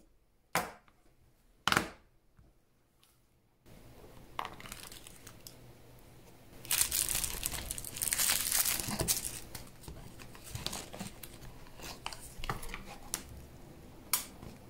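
Plastic bubble wrap crinkling and rustling as a wristwatch is unwrapped from it, loudest for a few seconds around the middle. Before it come two sharp clicks in the first two seconds, and there is another click near the end.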